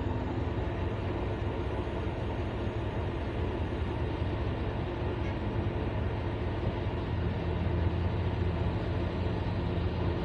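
Large Hyundai excavator's diesel engine running steadily with a deep rumble. It grows somewhat louder and heavier about seven seconds in.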